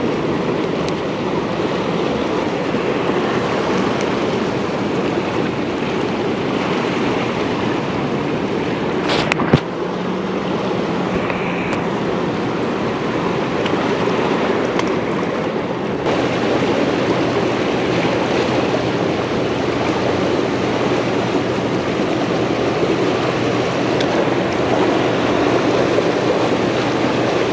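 Steady rushing of the turbulent water churning below a dam, with one sharp knock about nine and a half seconds in.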